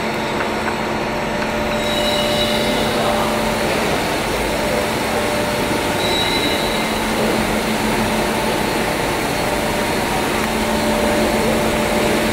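PVC blown-film extrusion machine running: a steady whirring machine noise with a constant low hum.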